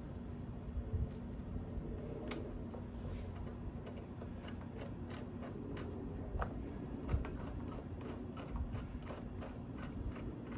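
Scattered light clicks and taps of a brake hose fitting and hand tools being handled while the hose is connected to a motorcycle's front brake caliper, over a low steady hum.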